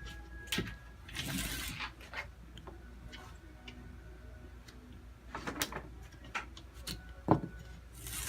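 Handling noises from working on a window screen frame: scattered sharp clicks and taps, with a scraping rustle about a second in.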